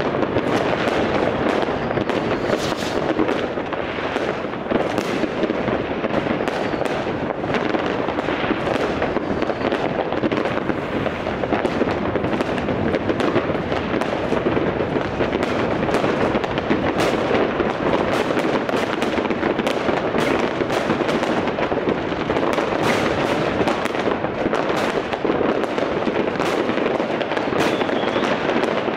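Fireworks and firecrackers going off all around at once: a dense, unbroken crackle of overlapping bangs and pops, with sharper cracks standing out one after another.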